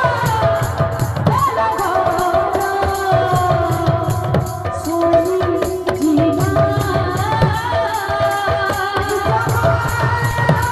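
Live Sambalpuri kirtan music: a sung melody over a hand-played barrel drum, with an even, quick high jingling beat keeping time.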